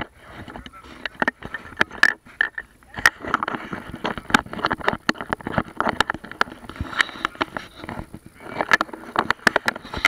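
Irregular close clicks and knocks of an action camera being handled, mixed with water splashing right at the microphone.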